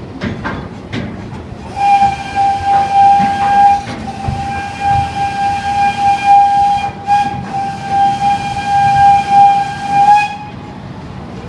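The Grand Sierra Railway ride train's whistle blowing one long steady note for about eight seconds, swelling and easing, over the rattle of the cars on the track.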